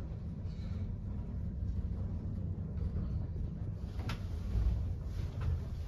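Rubax-modernised 1983 Schindler passenger lift travelling downward: a steady low rumble of the car in motion, with a sharp click about four seconds in.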